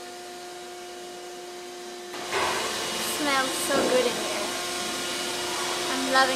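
Steady mechanical whirring hum, like a fan or motor running, that gets louder about two seconds in; short voice-like sounds with falling pitch come over it twice.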